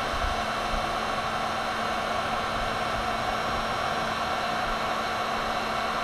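Electric heat gun blowing steadily: a constant rush of hot air over a low, even motor hum, held on a 7mm bullet connector to melt solder onto a phase wire.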